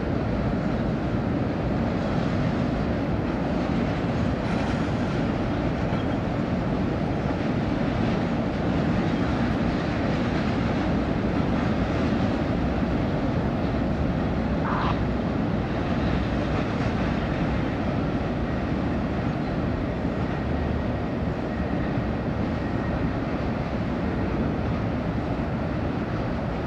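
Double-stack intermodal freight train rolling across a tall steel truss railroad bridge, a steady low rolling noise. A brief high note stands out about fifteen seconds in.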